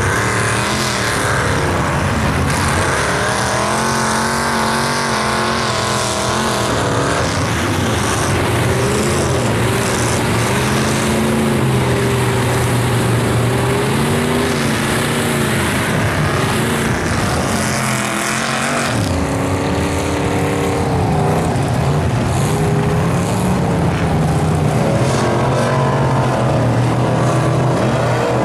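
Lifted mud truck engines running at high throttle through deep mud, the pitch rising and falling as the throttle is worked. The sound changes abruptly about two-thirds of the way through.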